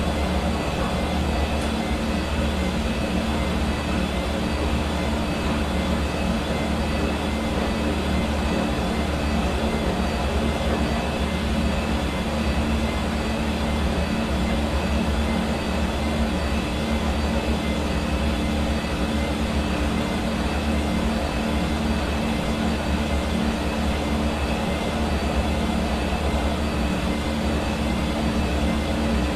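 Hair dryer running steadily, a constant blowing whoosh with a low motor hum.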